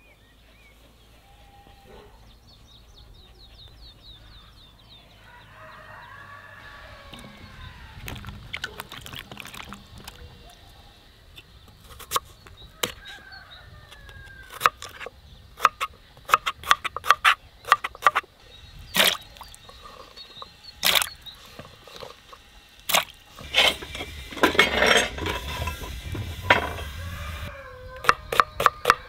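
Knife blades striking a wooden chopping board: a crinkle cutter slicing peeled potatoes in separate cuts, then a chef's knife chopping an onion in quick strokes near the end.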